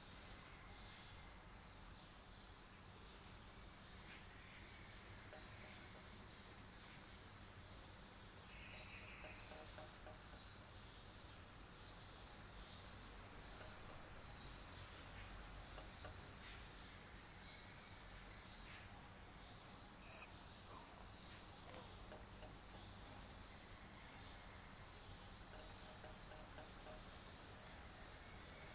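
Electric fan running steadily: a soft, even hiss with a constant high-pitched whine over it.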